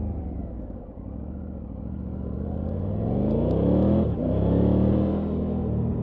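Triumph Tiger 900 Rally Pro's three-cylinder engine easing off, then accelerating with a steadily rising pitch. About four seconds in there is a short break where the pitch drops, as when shifting up a gear, and then it climbs again and holds.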